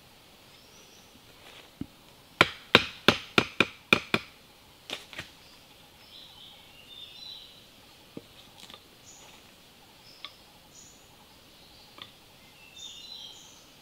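Pieces of cut wood knocked together by hand: a quick run of about seven sharp wooden knocks a couple of seconds in, followed by a few scattered, quieter taps. Faint bird chirps sound in between.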